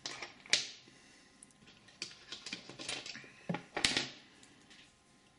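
Light clicks and taps from fly-tying tools handled at the vise while the final whip-finish knot is tied at the fly's head: a sharp click about half a second in, a run of lighter ticks, then two more sharp clicks just before the four-second mark.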